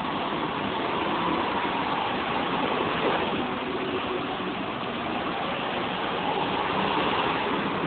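Go-kart engines running as karts lap the track, their note drifting up and down over a steady wash of noise.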